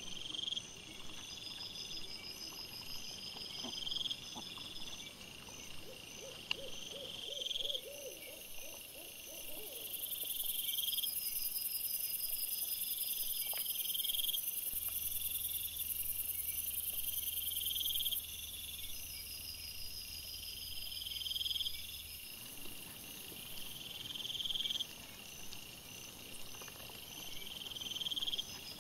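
Night insects calling: a chirp that rises in pitch and repeats every second and a half or so, over a high, rapid trill. A steady high hiss sets in for several seconds in the middle, and a short low rattling series comes about seven seconds in.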